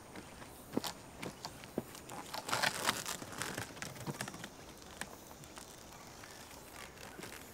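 Footsteps on dry dirt with scattered light knocks and rustling as a man is carried on a bamboo-pole stretcher with bedding, with a burst of rustling about two and a half seconds in.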